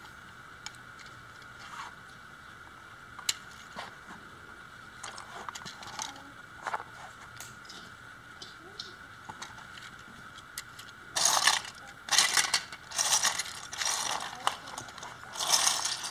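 White plastic gears of a 3D-printed wind-up spring motor and Lego Technic parts clicking now and then as they are handled and fitted onto an axle. In the last few seconds come several louder bursts of rattling from the plastic parts.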